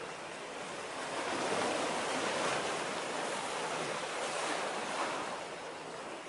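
Sea waves washing against the shore, a steady rush that swells about a second in and eases near the end.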